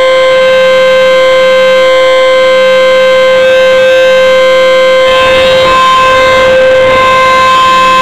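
Rotating outdoor tornado warning siren on a pole, sounding a loud, steady single tone as its horn turns: the steady alert signal of a routine siren test. A rush of noise comes in under the tone about five seconds in.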